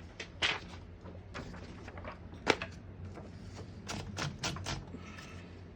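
1968 Smith-Corona Super Sterling portable typewriter clicking as its mechanism is worked: scattered sharp clacks, the loudest about two and a half seconds in and a quick run of four near the end.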